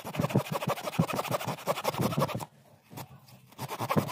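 Folding hand saw cutting through a small log, its teeth rasping on the wood in quick back-and-forth strokes. It pauses about two and a half seconds in, then resumes about a second later.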